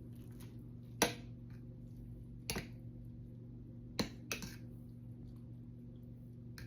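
A utensil clinking against a bowl while noodles are stirred: four sharp clicks, roughly a second and a half apart with the last two close together, over a steady low hum.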